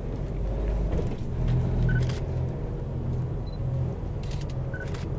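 A bus engine runs steadily, with road rumble, as the bus drives along.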